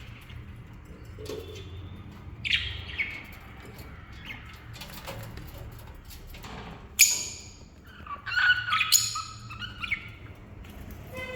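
Pet lovebirds chirping and squawking in short, scattered calls, with one loud, sharp shriek about seven seconds in and a quick run of calls around nine seconds.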